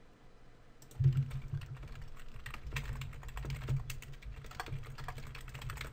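Typing on a computer keyboard: a quick, uneven run of key clicks that starts about a second in.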